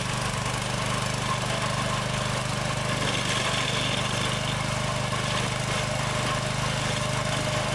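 Janick 1500 dog-fence trencher running steadily under load, its engine and digging blade cutting a trench 5.5 inches deep to bury wire in hard-packed dirt.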